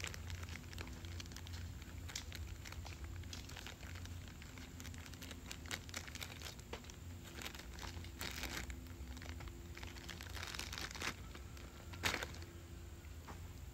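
Plastic blind-bag packaging crinkling and rustling in the hands, in scattered irregular crackles, with a few louder ones later on.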